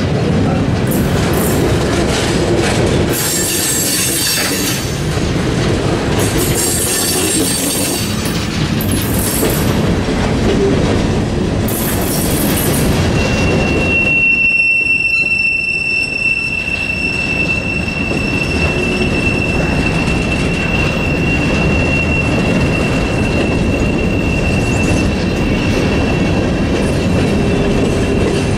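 Freight cars rolling past close by: a steady rumble with wheel clatter. Bursts of high screeching come through the first half, and from about halfway a long, steady, single-pitched wheel squeal holds until near the end.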